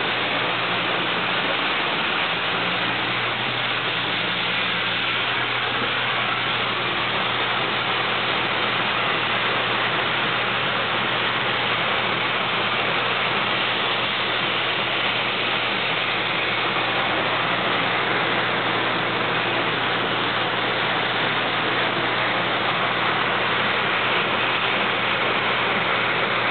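1925 Meyers elevator running, driven by a 3 hp Masters electric motor, with a steady rushing hiss of beans pouring through it and a low even hum.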